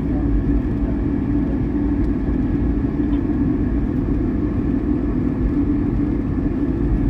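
Inside a SEPTA Market-Frankford Line ADtranz M4 subway car running steadily at speed: an even rumble of the train with a constant low hum under it.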